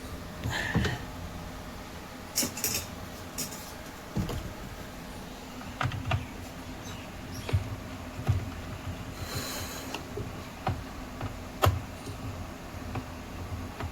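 Scattered clicks, taps and knocks at irregular intervals, with a brief rustle about nine and a half seconds in: the big screws that hold a washing machine's gearbox being fitted and tightened.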